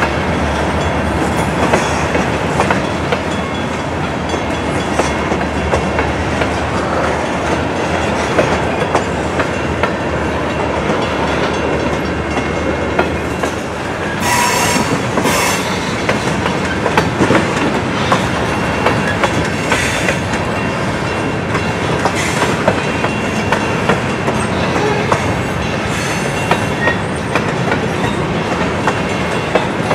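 Freight cars of a long train rolling steadily past: a continuous rumble with the wheels clicking over the rail joints.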